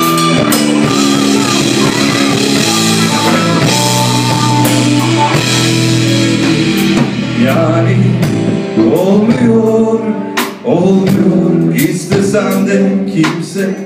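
Live rock band playing: electric guitars and drum kit, loud and steady, with sliding guitar notes in the second half.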